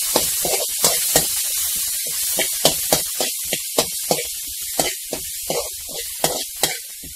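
Metal spoon scraping and knocking against a metal frying pan as chopped onion and tomato are stirred, about three strokes a second, over the sizzle of the vegetables frying in coconut oil. The sizzle and scraping get quieter toward the end.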